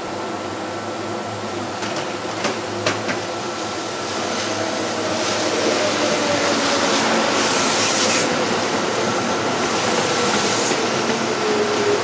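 A Kintetsu limited express electric train pulling into the station on the next track, its motor whine falling steadily in pitch as it slows and its running noise growing louder from about four seconds in, over the steady hum of a train standing at the platform.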